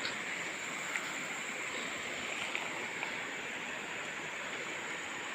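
Steady rush of a shallow stream's flowing water, even and unbroken, with a thin steady high tone above it and a few faint ticks.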